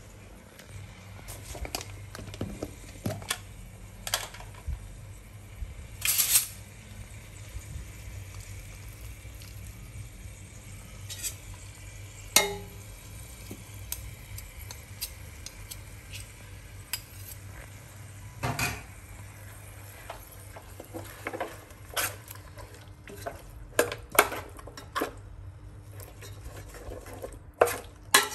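Metal ladle clinking and scraping against a stainless steel pot while pieces of pork are spooned over and stirred, with scattered sharp knocks that come thicker near the end. A steady low hum runs underneath.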